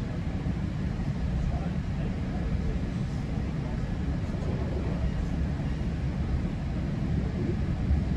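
Steady low rumble of a GO Transit commuter train running along the line, heard from inside a passenger coach.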